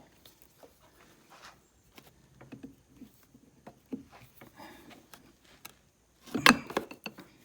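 Scattered light clicks, taps and scrapes of hands and tools working on an air compressor pump's metal parts, with a louder clatter about six and a half seconds in.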